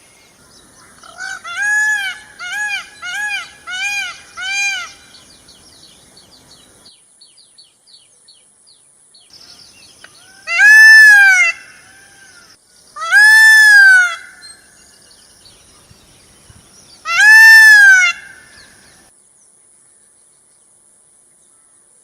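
A bird giving clear, pitched calls that rise and fall in pitch. First comes a quick run of about six short calls, then three louder, longer calls spaced a few seconds apart.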